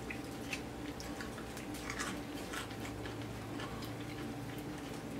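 Eating sounds from fried chicken being pulled apart by hand and chewed: scattered short crackles and mouth clicks. A steady faint hum runs underneath.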